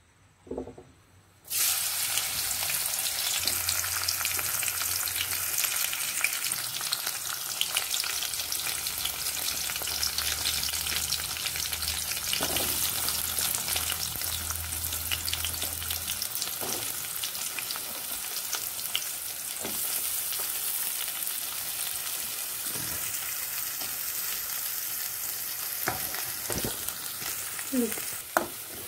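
Chopped onion, green chilli and garlic frying in hot oil in a metal kadhai. The sizzle starts suddenly about a second and a half in as the vegetables hit the oil, then hisses steadily while a spatula stirs and scrapes against the pan.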